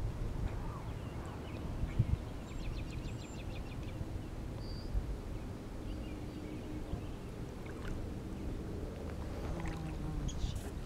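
Low rumble of water and wind around a raft drifting on a river, with a couple of short knocks and faint high ticking.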